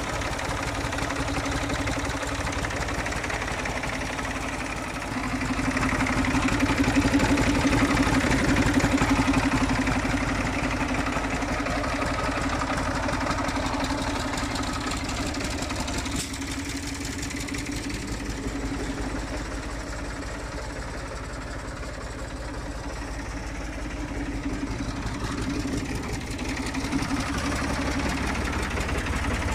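Fiat Štore 504 tractor's diesel engine idling steadily. It grows louder for a few seconds about five seconds in, then settles back.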